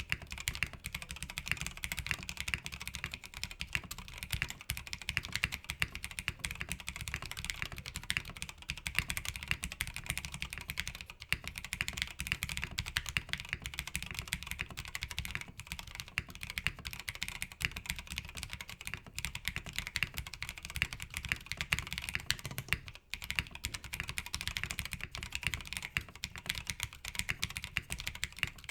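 Continuous fast typing on a mechanical keyboard fitted with stock Tecsee Oreo linear switches, POM plate top-mounted with no plate foam, and PBT keycaps: a dense run of key clacks, pausing briefly near the end.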